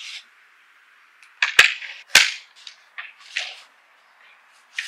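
Hinged Douglas-fir laminated panels and legs of a folding wooden camping table clacking as the table is swung open: two loud wooden knocks about a second and a half and two seconds in, then several lighter clacks as the parts settle into place.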